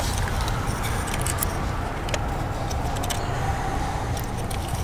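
Light, irregular metallic clicks and clinks of hand tools working on a diesel injector's hold-down bolt and bracket, over a steady low rumble.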